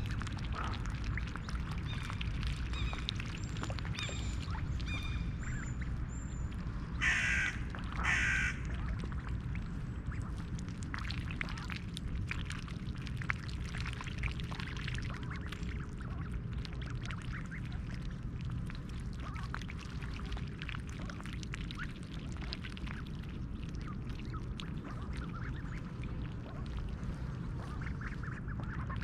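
Mallard ducks feeding on a pond, with soft quacks and many short clicks over a steady low background rumble. Two loud harsh calls sound close together about a quarter of the way in, and small birds chirp faintly in the first few seconds.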